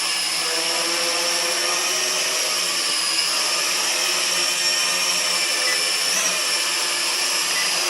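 Kaideng K80 toy quadcopter hovering: its small motors and propellers give a steady high-pitched whine that wavers slightly in pitch.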